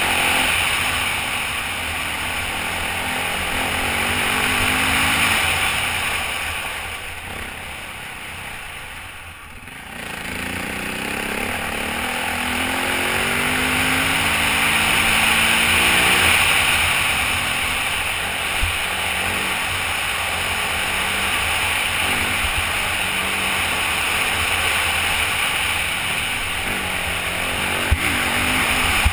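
Off-road dirt bike engine revving up and down through the throttle as it rides a dirt trail, with steady wind rush over the helmet-mounted microphone. The engine eases off about seven seconds in and picks back up about ten seconds in; two sharp clicks come later.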